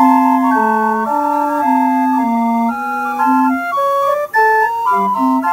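A 1924 circus calliope's brass whistles playing a loud tune in held, organ-like notes over a stepping bass line, with a brief break about four seconds in.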